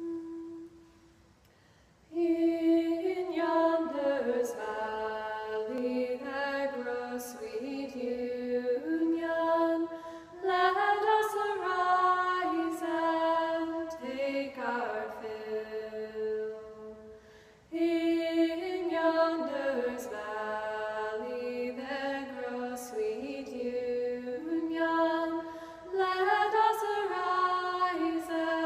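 Women's voices singing a Shaker hymn unaccompanied, in slow, drawn-out phrases. A single held note sounds at the very start, then a pause of about a second and a half before the singing begins, with a short breath pause a little past the middle.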